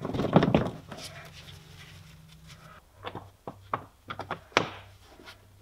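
Plastic wheel-arch liner being handled and pressed into place: a scraping rustle at the start, then a string of short sharp clicks and taps about three seconds in.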